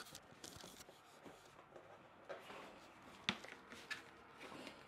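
Faint handling noise of a boxed item being taken out and carried: light rustles and a sharp click about three seconds in, over quiet room tone.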